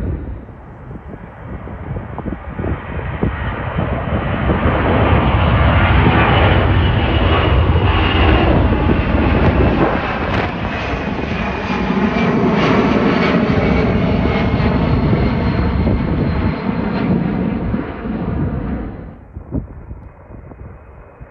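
Large military jet aircraft passing, its turbofan engines building to a loud rumble with a high whine that slowly falls in pitch. The sound cuts off abruptly near the end.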